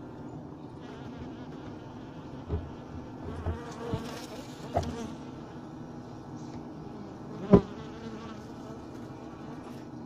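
Honeybees buzzing inside a frameless Japanese-style hive: the steady hum of the colony. A few short, louder knocks stand out, the loudest about seven and a half seconds in.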